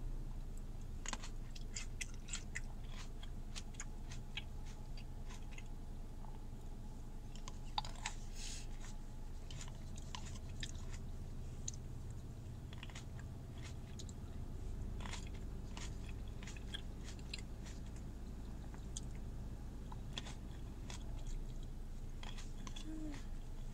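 A person chewing and biting food, with many short clicks through the chewing.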